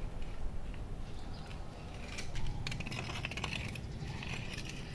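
Car scissor jack being set under the body and its crank rod handled, making irregular light metal clicks and rattles.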